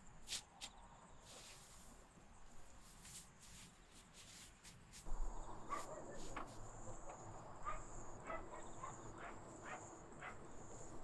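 Faint, short animal calls, several in an irregular series, starting about halfway through over a low background; a couple of clicks near the start.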